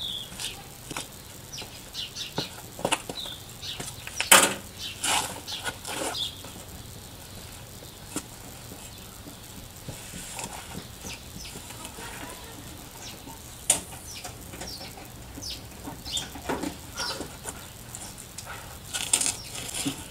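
Scattered clicks, knocks and light rattles from hand work under the rear of a van, the loudest knocks about four seconds in and near the middle; no engine is running.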